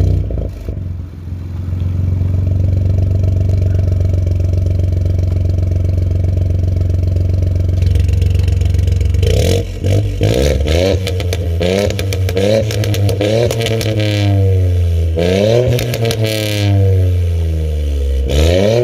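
Mk8 Ford Fiesta's engine and exhaust idling steadily, then revved again and again from about nine seconds in, the pitch rising and falling with each rev, with sharp crackles at some of the revs.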